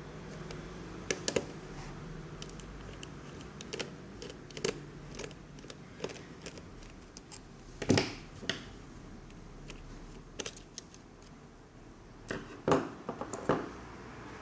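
Irregular clicks and taps of small plastic and metal parts being handled as a netbook is taken apart, with two louder knocks about eight seconds in and near the end.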